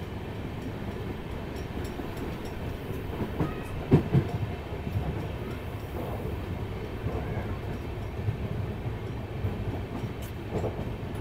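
A moving passenger train's wheels rumble steadily over the rails, with a louder knock about four seconds in.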